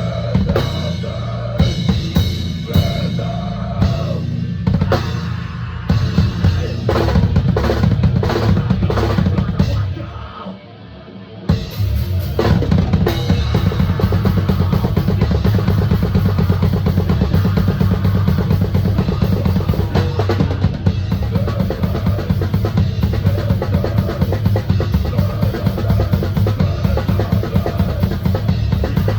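Metal band playing, the drum kit loudest, with kick and snare to the fore. Choppy stop-start hits for about ten seconds, a short drop, then a fast, unbroken drum beat.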